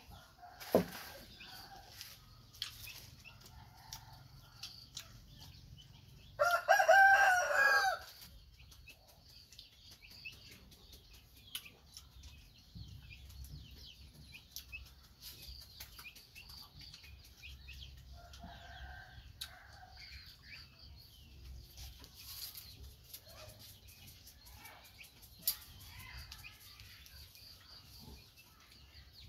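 A rooster crows once, about six seconds in, for under two seconds. Chickens cluck faintly around it, with a couple of sharp clicks.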